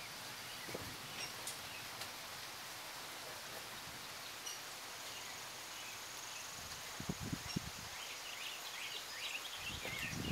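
Outdoor ambience: a steady hiss, with small birds chirping in quick, scattered bursts from about eight seconds in. A few short low bumps come around seven seconds in and again near the end.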